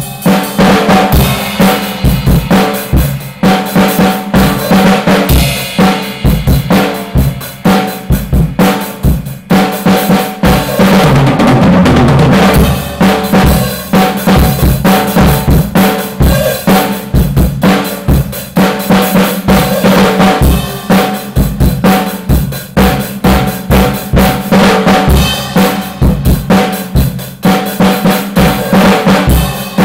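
Acoustic drum kit played solo: loud, fast strokes on snare and toms over bass drum, with cymbal hits. Near the middle the strokes run together into an unbroken roll for about two seconds.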